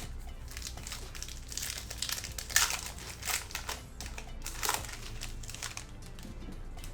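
Foil wrapper of a Panini Prizm football hobby pack being torn open and crinkled by hand, in irregular crackling bursts with the loudest about two and a half seconds in and again near five seconds.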